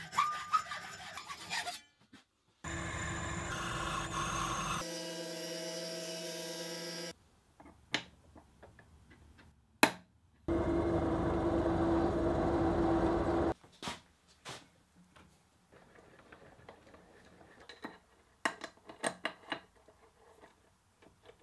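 Hacksaw strokes cutting brass held in a vise. Then two spells of a power tool running steadily, each starting and stopping abruptly. After that come light clicks and taps of brass parts being handled and fitted on an aluminium plate.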